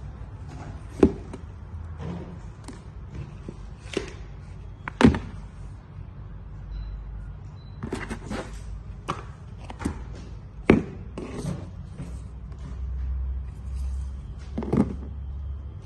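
Handling noise from a cardboard shoe box, a paper envelope of spare laces and a sneaker: scattered knocks, taps and light rustles, with a few sharper knocks spread through.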